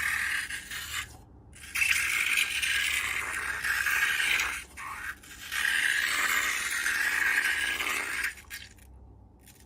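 Hissing, scraping noise in three stretches, the longer two lasting a few seconds each with short pauses between, dying away near the end.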